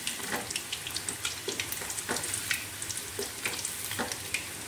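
Batter-coated quail pieces deep-frying in hot oil in a metal kadai: a steady sizzle with frequent crackling pops, and a metal slotted spoon knocking against the pan now and then as the pieces are turned.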